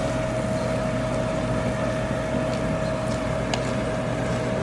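Steady drone of a small motor with a constant mid-pitched whine and a low hum, with a couple of faint clicks.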